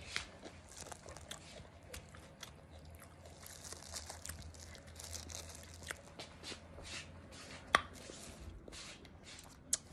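Close-up chewing of a mouthful of pickle and corn starch: soft wet clicks, crackles and squishes, with one sharper click about three quarters of the way through.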